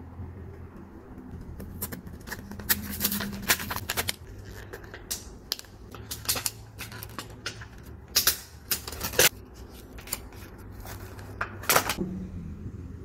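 Sticky jelly squishy bear toys being squeezed and stretched by hand, giving irregular sticky clicks and crackles in several clusters.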